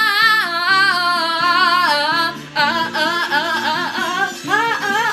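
A woman sings a rock-opera karaoke cover over a backing track. She holds one long note with vibrato, then, about two and a half seconds in, breaks into fast vocal runs that swoop up and down.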